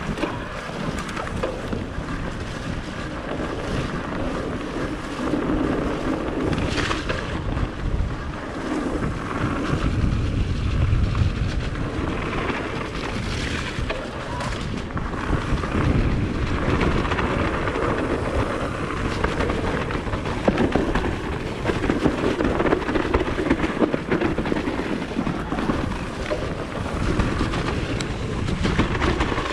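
Wind buffeting the microphone while a Propain Ekano e-mountain bike is ridden along a trail, with tyre noise and scattered knocks and rattles from the bike over rough ground.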